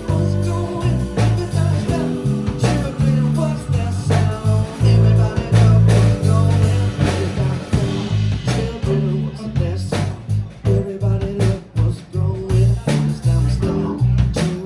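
Live blues-rock band playing with no lead vocal: a prominent electric bass line under drums, electric guitar and keyboard.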